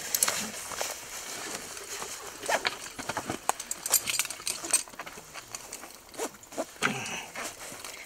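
Clicks and clinks of a climbing harness's metal buckles and webbing straps being handled, fastened and tightened, scattered irregularly over several seconds.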